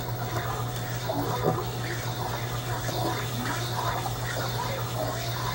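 Steady scraping of a small metal Genesis-style atomizer part being rubbed in circles on a flat grinding wheel, sanding material off so its air hole will line up. A steady low hum runs underneath.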